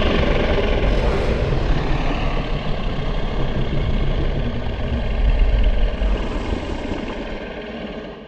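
Ultimasaurus dinosaur sound effect: a long, deep, rumbling growl that fades out near the end.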